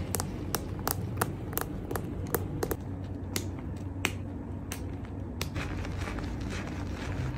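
Hands working thick shampoo lather through wet hair, making sharp wet clicks and squelches over a soft rubbing sound, about three a second at first and more spaced out later.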